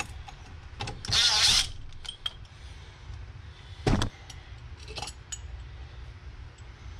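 A cordless power driver whirs briefly about a second in, spinning out a wastegate's cap screws. A sharp metallic knock comes just before four seconds, then a few lighter clicks as parts are set down on the metal bench.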